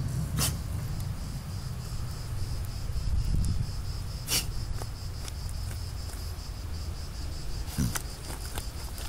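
A dog sniffing and snorting with its nose in a hole as it digs in dry dirt, with a few short sharp snorts spread through. A steady high-pitched insect drone, crickets or cicadas, carries on behind.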